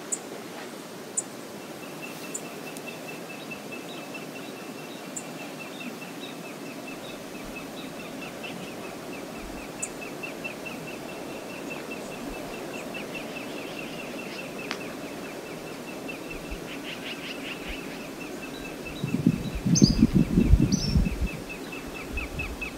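Outdoor lakeshore ambience: a steady soft rush of wind and water, with a long run of faint, rapid high pips and a few short bird chirps. About 19 seconds in, a loud low rumbling lasts about two seconds.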